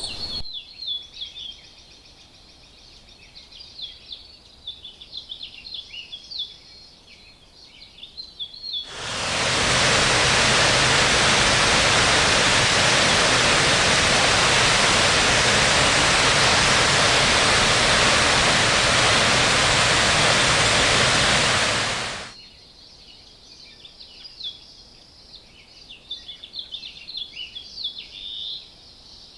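Cloud-forest birds chirping and calling in the canopy; about a third of the way in, the loud, even roar of a tall waterfall fades up and drowns them out, then stops suddenly about three-quarters through, leaving the birdsong again.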